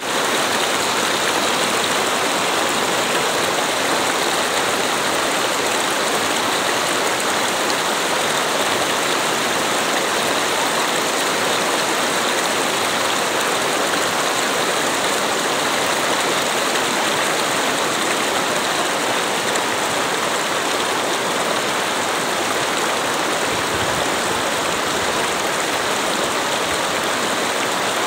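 Water of a shallow stream running steadily over rocks, a constant rushing noise.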